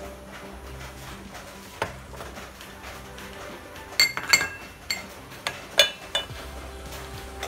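Glassware clinking as a glass pour-over coffee dripper and server are handled and set down on a counter. There is one sharp clink near two seconds in, then a run of about half a dozen bright, ringing clinks from about four to six seconds in.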